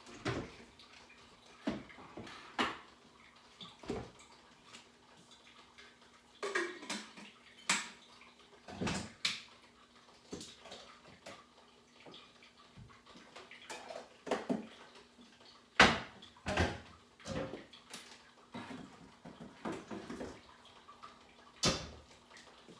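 Irregular clatter and knocks of dishes and kitchen things being handled and set down on a counter, with a faint steady hum underneath.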